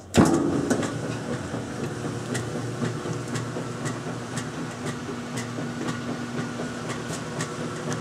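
Kenmore 600 top-load washing machine: the lid shuts with a loud thump, and the machine then runs with a steady hum and a regular clicking about twice a second.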